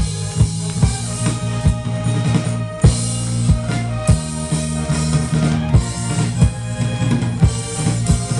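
A live wind band with saxophones and brass plays an upbeat piece over a drum kit, held chords over a steady beat of about two drum hits a second.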